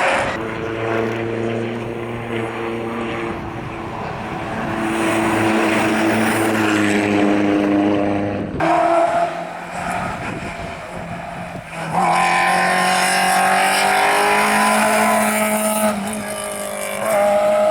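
Rally car engines at full throttle on a stage, their notes rising and falling through gear changes. The sound switches abruptly from one car to the next about halfway through and again about two-thirds of the way through.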